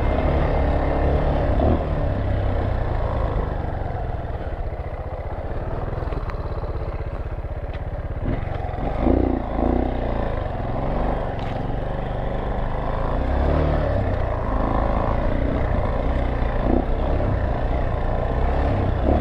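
Dirt bike engine running steadily as it is ridden along a muddy trail, the throttle easing off for a few seconds and then briefly louder twice about nine seconds in.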